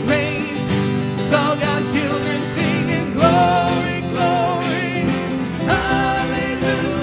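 Live worship band playing an upbeat song: strummed acoustic guitars, electric guitar and drums keep a steady beat, with long wavering melody notes held above them.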